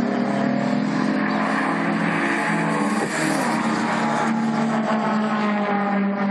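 Race car engines running, a steady engine note with a short falling pitch about three seconds in.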